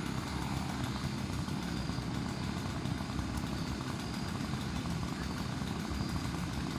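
A heavy engine running steadily with a low, even rumble, from the tree-removal crew's machinery.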